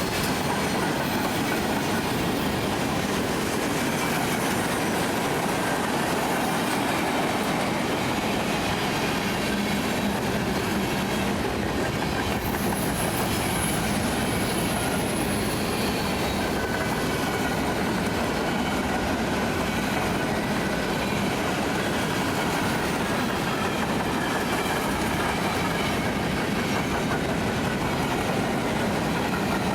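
Freight train cars rolling steadily past, their wheels clattering on the rails. A thin wheel squeal comes in briefly about halfway through.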